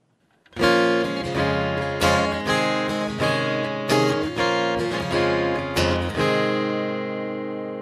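Acoustic guitar strumming the opening chords of a song, starting about half a second in, with a last chord left to ring and fade near the end.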